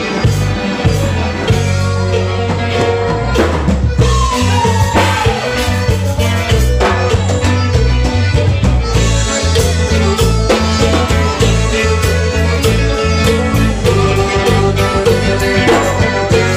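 Waila (O'odham chicken scratch) dance band music playing, with a stepping bass line under a steady drum beat and guitar.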